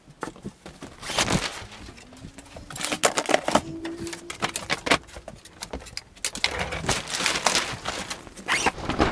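Irregular knocks, clicks and rustling from handling gear: a shop vacuum and its hose being moved and plastic sheeting brushed aside.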